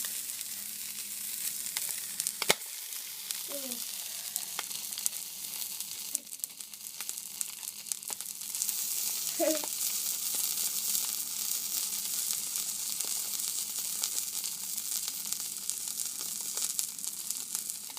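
Scallop roe frying in a hot pan: a steady sizzle full of small crackles and pops, with one sharp crack about two and a half seconds in. The sizzle grows louder about halfway through.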